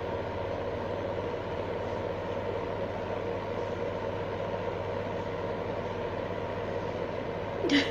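Small electric fan heater running steadily, its fan blowing hot air with a constant whirr and hum. A brief louder sound comes near the end.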